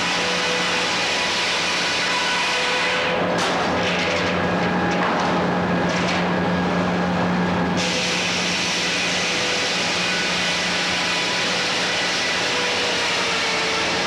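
Frick 00 circular sawmill running, a steady mechanical noise over a constant low hum. The high hissing part drops away for about five seconds in the middle, then comes back.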